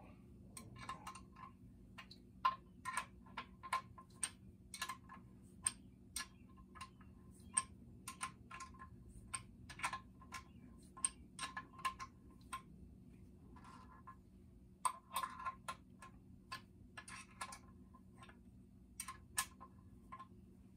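Hand ratchet wrench clicking in irregular short runs as it works the bolts holding an outboard motor's lower unit (gearbox), a step in removing the gearbox.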